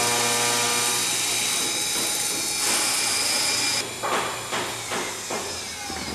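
Woodworking machinery on a wooden cable drum production line. For about four seconds there is a steady hiss with a high whine over it. Then it drops away and irregular knocks and clatters of wood follow.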